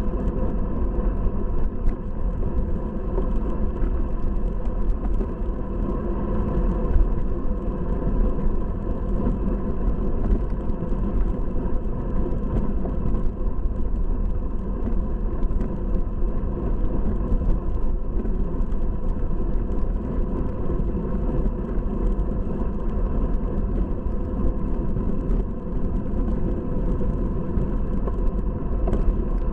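Wind buffeting the microphone of a bicycle-mounted camera on a road bike at race speed: a steady low rumble with no distinct events.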